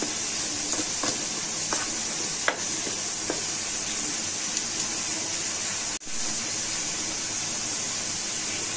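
A steady hiss throughout, with a few light clicks of a metal spoon against a glass bowl as dry flour is stirred in the first few seconds.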